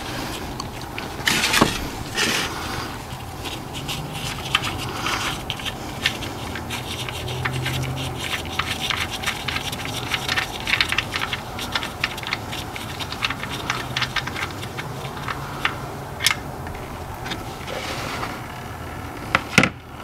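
A gloved hand unscrewing the oil drain plug from the engine's oil pan: rubbing and scraping with many small clicks, and a sharper click about a second and a half in and again near the end.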